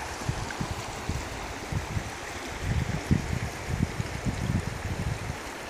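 The Boulder River, a mountain river, flowing with a steady rush of water, with irregular low rumbles on the microphone.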